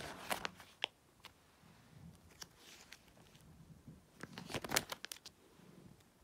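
Plastic binder sleeve pages of trading cards being turned and handled: scattered crinkles and clicks, in a cluster at the start and a busier one about four to five seconds in.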